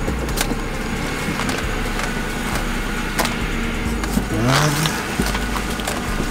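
2007 Lincoln Town Car's 4.6-litre V8 idling while the steering wheel is worked from lock to lock to bleed air from the power steering, with a short rising whine from the power steering pump about four seconds in. A few light clicks come from the wheel being turned.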